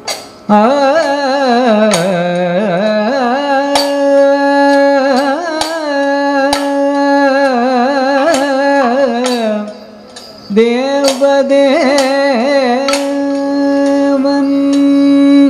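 Kathakali vocal music: a singer holds long notes and ornaments them with wavering turns, pausing briefly about two-thirds of the way through. Sharp percussion strikes keep time at about one a second.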